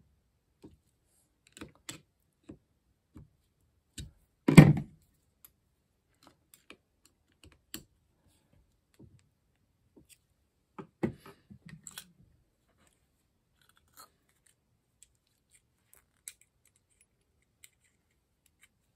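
Small clicks and light metal clinks of a screwdriver and the parts of a Solex 28 PICT-1 carburetor being handled, with one loud clatter about four and a half seconds in and a smaller cluster of knocks around eleven seconds.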